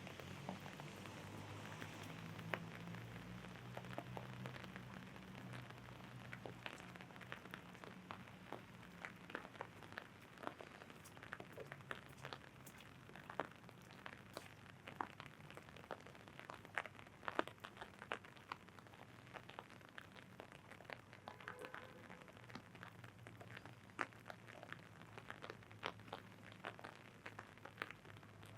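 Rain drops tapping irregularly on an umbrella canopy, many sharp ticks of varying loudness over a faint hiss of rain. A low steady hum runs underneath, stronger in the first few seconds.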